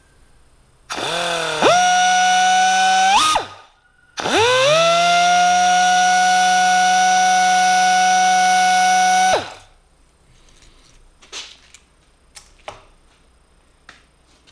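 Pneumatic die grinder spinning a slotted rod wrapped with abrasive flap paper inside a bored hole in the cross head casting, sanding the bore to take out the last thousandth of an inch. It runs twice with a whine that rises as it spins up: first for about two seconds, then steadily for about five seconds, each time stopping abruptly. A few light taps follow.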